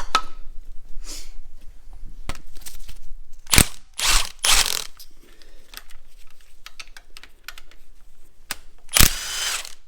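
Hand tools at work on a stripped-down engine: a ratchet clicking and metal parts knocking, with a sharp metal knock about three and a half seconds in and a longer rattling burst near the end.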